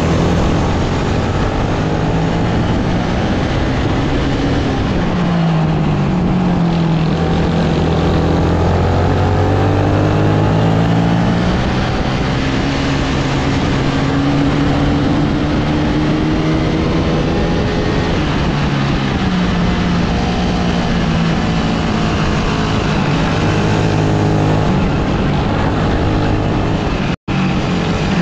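Rental kart engine heard from the driver's seat at racing speed, its pitch rising as it accelerates out of corners and falling as it brakes into the next, over and over. The sound cuts out for an instant near the end.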